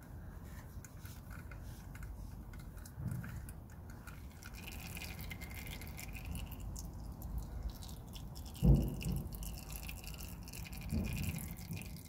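Gearbox oil trickling and dripping in a thin stream into a plastic drain pan already part-filled with oil, giving a run of small irregular drips and splashes over a low rumble. A dull thump comes about nine seconds in, with a smaller one near the end.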